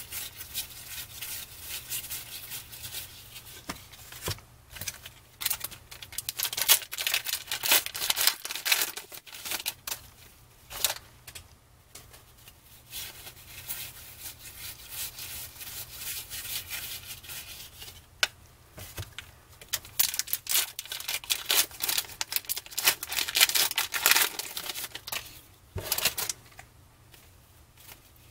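Cardboard baseball trading cards (1992 Donruss Triple Play) flipped through by hand, each card slid off the stack and onto the back: quick, irregular scraping and flicking of card edges, coming in flurries.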